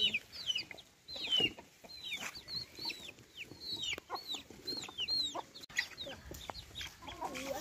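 Chickens: chicks peeping over and over in short, high chirps that fall in pitch, about two or three a second, with hens clucking now and then.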